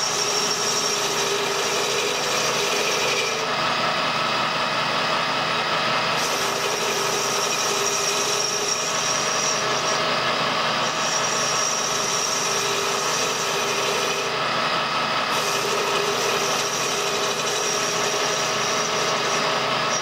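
Colchester metal lathe running steadily while a homemade ball-turning cutter shaves a spinning brass workpiece, the cutting hiss coming and going every few seconds over the machine's steady tones.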